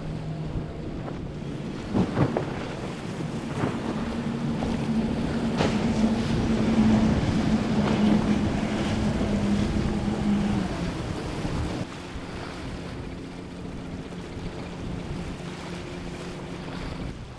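Outboard motors on boats running at speed through choppy water: a steady engine drone over hull spray and waves, growing louder to a peak in the middle, then dropping suddenly about two-thirds through to a quieter mix of waves, wind and distant engines. A few brief knocks about two seconds in.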